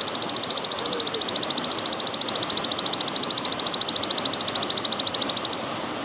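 A belalang emas (golden grasshopper) calling: one long, loud, high-pitched buzzing trill of about fifteen pulses a second, stopping abruptly about five and a half seconds in. Under it runs a steady trickle of flowing water.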